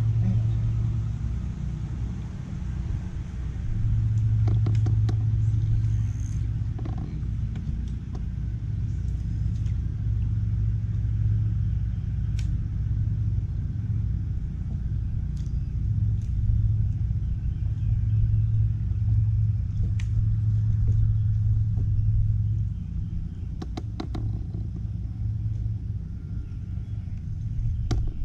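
Wind buffeting the microphone, a low rumble that swells and fades in gusts, with a few sharp clicks from the fishing tackle.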